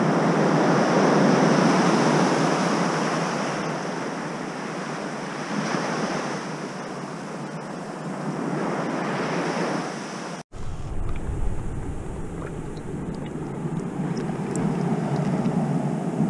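Sea surf washing in, the noise swelling every few seconds. About ten seconds in it cuts off abruptly and gives way to a lower rumble with a few faint clicks.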